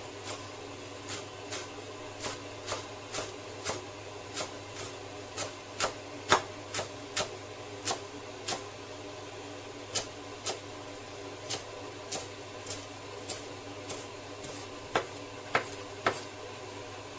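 Chinese cleaver chopping green onions on a round wooden chopping board: sharp knocks of the blade on the board, about two a second, with a short pause about nine seconds in. A steady low hum runs underneath.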